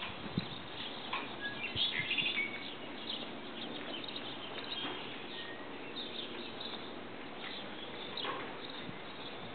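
Small birds chirping a few times, the busiest burst about two seconds in, over steady outdoor background noise.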